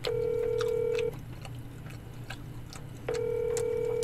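Phone ringback tone of an outgoing video call: a steady beep lasting about a second, then a gap of about two seconds, then the beep again. Faint clicks of chopsticks on dishes in between.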